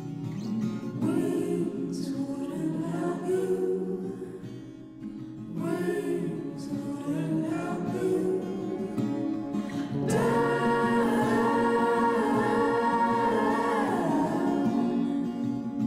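Background music: a song with singing voices, including a long held sung note that runs from about ten seconds in until near the end.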